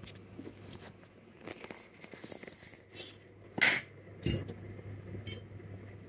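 Small clicks and clinks of hand tools being handled on a repair bench, with two louder knocks about three and a half and four and a quarter seconds in, over a low steady hum.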